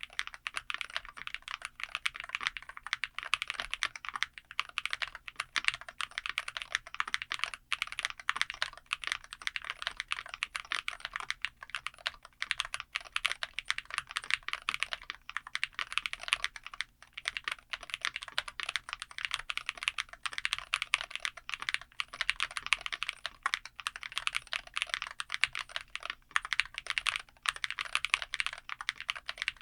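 Fast, continuous typing on a Womier SK75 TMR magnetic keyboard with Outemu Tea Magnetic switches: a dense run of keystroke clicks with a few brief pauses.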